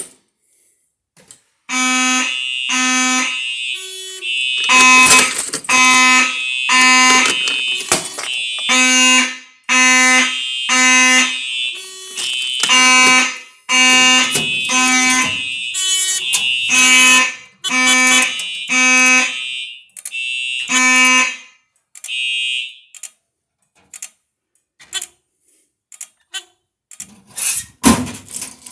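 Fire alarm notification horns sounding in the system's alarm pattern, set off by pulling a Simplex 4251 pull station. The loud pulsed tone repeats about once a second and stops about 21 seconds in, followed by one short higher beep and a few clicks.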